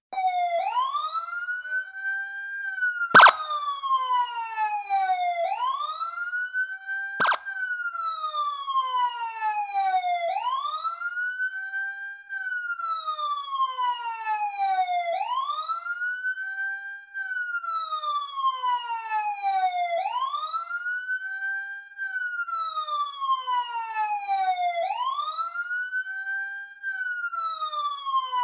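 Police siren in wail mode: the pitch sweeps up quickly, holds briefly, then falls slowly, repeating about every five seconds. A sharp click sounds about three seconds in and a softer one about seven seconds in.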